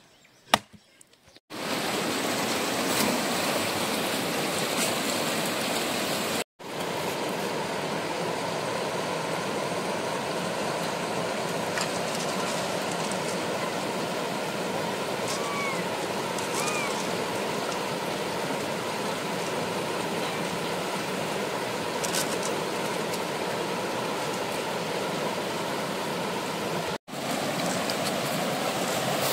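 Steady rushing water, the dense even hiss of heavy rain or a fast stream, starting about a second and a half in after a single sharp click and broken by two brief drops to silence. Two faint short chirps about halfway through.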